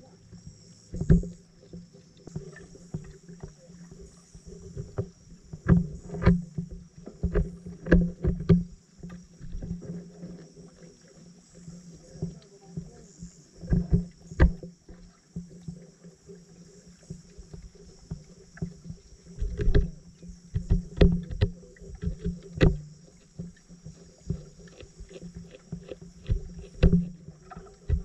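Sound picked up underwater by a submerged camera: irregular sharp clicks and knocks, some in quick clusters, over a steady low hum.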